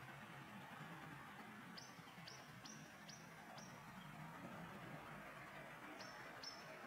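Faint outdoor hush with a small bird's short, high calls, each dropping quickly in pitch, repeated about twice a second: a run of five about two seconds in and another starting near the end.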